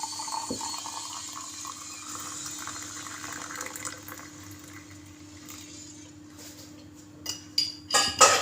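Hot water poured into a drinking glass over a spoonful of turmeric, running for about four seconds and then tailing off. Near the end a spoon clinks against the glass four or five times as stirring begins.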